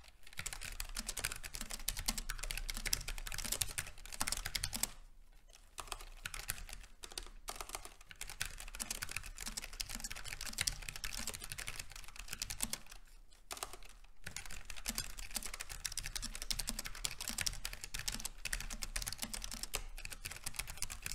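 Typing on a Logitech G915 low-profile mechanical keyboard with GL Tactile switches: a fast, continuous run of key clacks, pausing briefly twice.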